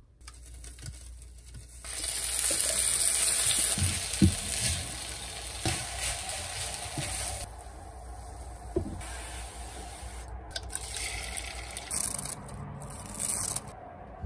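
Kimchi fried rice sizzling in a frying pan as a spatula stirs it, with a few soft knocks of the spatula against the pan. The sizzle eases for a moment about halfway through, then comes back.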